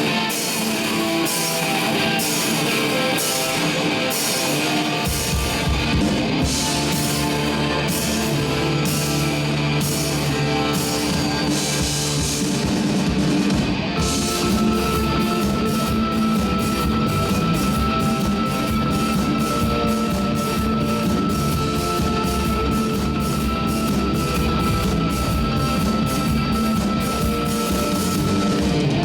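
Live heavy rock band playing: electric guitars and a drum kit with steady cymbal strokes, the bass and kick drum coming in about five seconds in. A single steady high tone is held through the second half.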